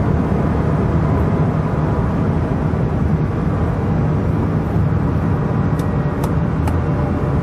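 Cabin noise of a Bugatti Veyron running flat out near its top speed: a steady mix of its quad-turbo W16 engine, wind and tyre noise that does not rise or fall. Three faint ticks about six seconds in.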